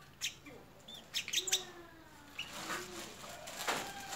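Short crackles and rustles of a plastic tying strip being handled and wrapped around a mango tree trunk, with a few faint bird chirps.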